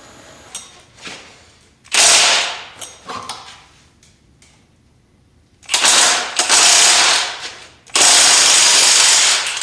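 Impact wrench hammering on a rusted exhaust manifold bolt in three bursts: a short one about two seconds in, then two longer ones of about two seconds each. The bolt does not break loose; it is seized badly enough that cutting it out with a reciprocating saw is next.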